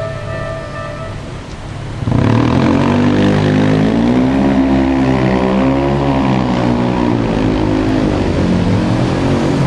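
Keikyu electric train passing over the level crossing. It comes in abruptly about two seconds in and runs loud, with a droning motor note that wavers slightly up and down in pitch.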